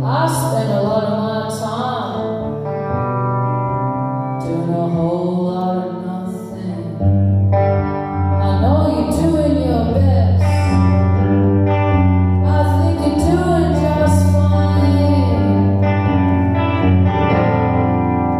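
Live song: a woman singing over clean, echoing electric guitar. Low notes come in about seven seconds in and the music gets louder.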